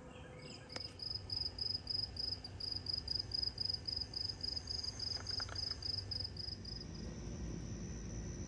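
Cricket chirping in a steady rhythm, about four high chirps a second, giving way to a steady high trill of insects near the end. A low rumble rises under it in the last second or two.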